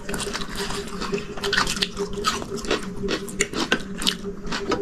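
Close-miked eating of instant ramen noodles: slurping and wet chewing, with many short lip and tongue smacks throughout.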